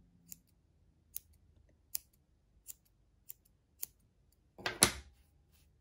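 Small sharp scissors snipping yarn, trimming a pompom: about six light snips, one every half second to second, then a louder snip near the end.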